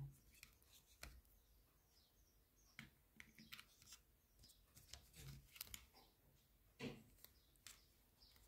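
Faint handling noise: scattered light clicks and rustles as a cable and small accessories are moved about in a packaging box.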